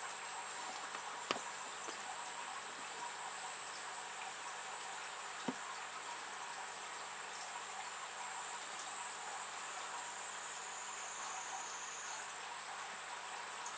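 A steady high-pitched trill or whine over a soft hiss. It sags slightly in pitch late on, then jumps back up near the end. A couple of faint taps come early on.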